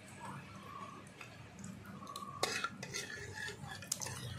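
A metal spatula stirring and scraping around an iron karahi where panch phoron spices fry in hot oil, with a few sharp clicks of the spatula against the pan about halfway through and again near the end.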